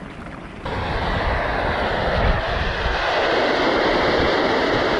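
Steam jetting from a volcanic fumarole: a loud, steady hissing rush that cuts in abruptly about two-thirds of a second in.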